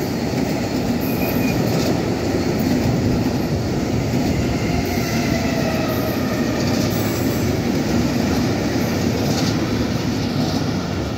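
Freight train of flat wagons loaded with lorries rolling past at speed: a steady rumble of wheels on rails, with faint thin squeals now and then.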